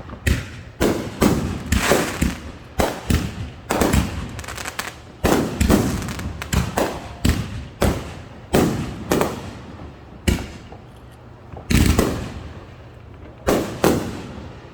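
Fireworks going off in a rapid, irregular barrage of sharp bangs, each ringing out briefly, thinning to a few separate bangs over the last few seconds.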